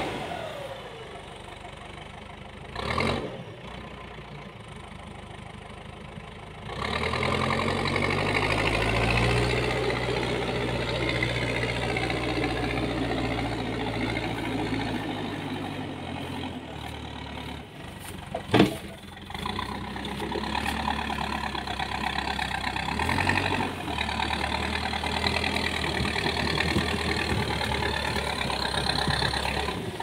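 Diesel engine of a Manitou backhoe loader running as it pushes its front bucket through brush. It runs quieter at first, then grows louder and steadier about seven seconds in, under load. Two sharp knocks, a small one early on and a louder one past the middle, stand out above the engine.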